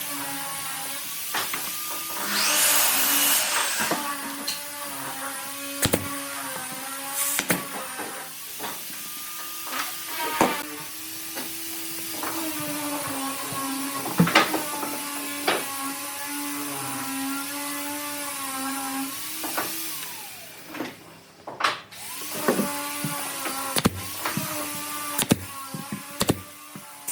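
Handheld electric power tool running with a steady whine that sags slightly in pitch under load, among knocks and clicks of work on wood. A short loud hiss comes about three seconds in; near the end the tool stops and starts again about two seconds later.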